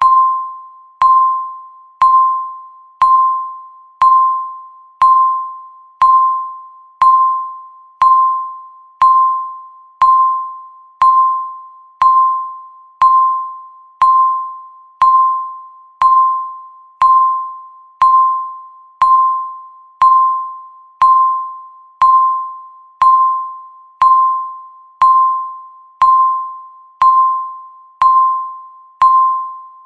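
Countdown timer tick: a single bell-like ping that starts sharply and fades away, repeated exactly once a second at a steady, even level.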